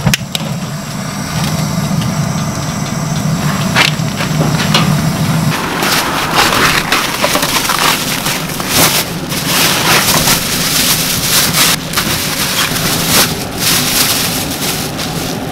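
A gas burner under a pot running with a low steady hum, which stops about five seconds in. Then plastic-gloved hands pile sliced radish rounds into a perforated stainless steel strainer pot: crinkling plastic with many small knocks and clicks.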